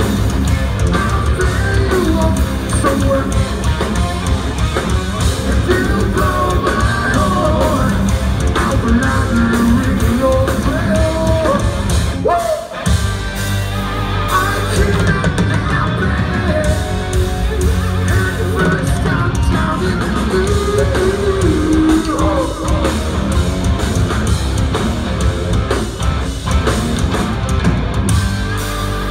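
Live hard rock band playing: distorted electric guitars, bass and drums with a singer's sung and shouted vocals. The band breaks off for a moment a little under halfway through, then comes back in.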